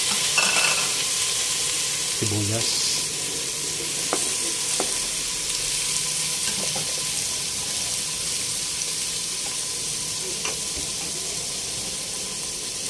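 Pork ribs sizzling in hot oil in a stainless steel pot with sautéed garlic, tomato and onion. The sizzle is loudest at the start and slowly dies down as the meat cools the oil.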